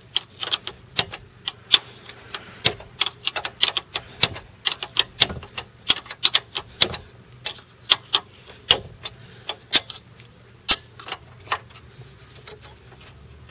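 Steel wrench clicking and clinking as it works the nut off a worn steering tie rod end (ball joint), giving many sharp, irregular clicks about three or four a second that thin out near the end. The joint's thread is thought to be damaged, so the nut takes many turns.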